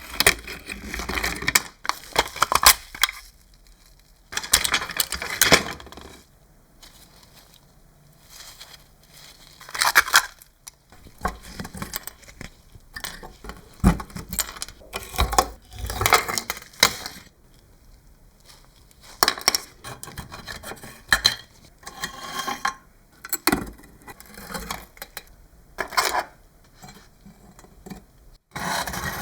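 Bursts of clinking, scraping and clattering of small hard parts being handled while a scale model pickup truck is taken apart, with short quiet gaps in between.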